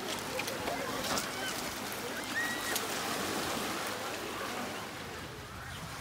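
Black Sea surf washing on a pebble beach as a steady rushing noise, with a few sharp knocks of stones being hammered and a couple of short high chirps.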